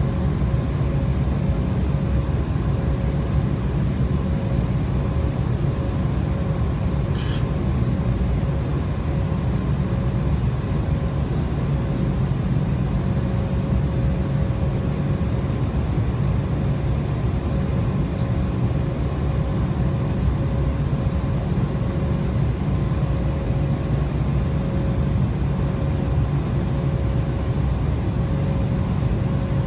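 Steady cabin noise inside an Embraer 190 airliner: a low rumble with a constant hum from its turbofan engines running at low power, holding even throughout without any spool-up.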